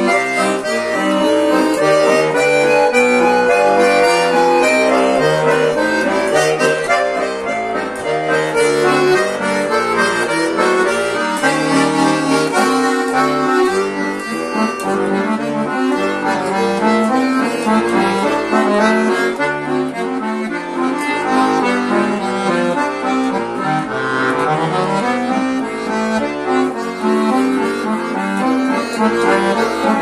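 Chromatic button accordion (bayan) played solo: a continuous, busy improvisation of quickly changing melody notes and chords over lower bass notes.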